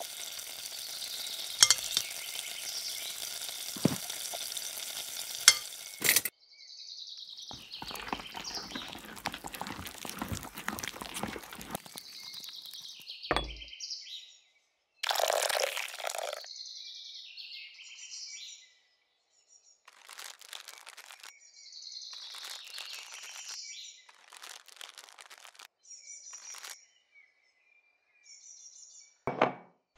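Small miniature-cooking sounds: a steady sizzle with a few light clicks for about six seconds, then short separate bursts of hissy sizzling and scraping with silent gaps between them.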